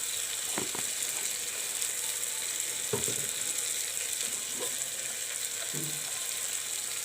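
Onion-and-tomato masala sizzling steadily in hot mustard oil in a pan, with ground spices just added. A spoon knocks lightly against the pan a few times as it is stirred.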